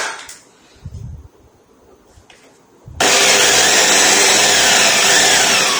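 About three seconds in, a small electric drill starts suddenly and runs loud, boring a pilot hole into the speaker box panel; its whine slides steadily down in pitch near the end.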